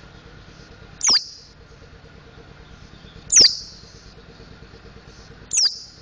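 Mountain white-eye giving three loud, sharp single calls about two seconds apart. Each call is a quick downward whistle with a hard, click-like start.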